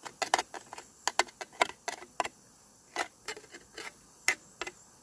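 Campfire with bacon cooking on it, giving irregular sharp crackles and pops, several a second, with short quiet gaps between.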